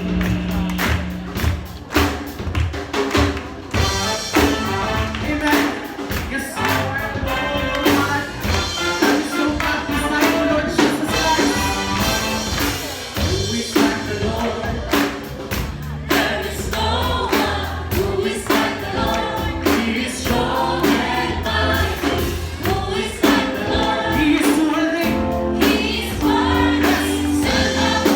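Gospel worship music from a band, with a steady drum beat and bass under a group of voices singing together. The singing comes in about four seconds in.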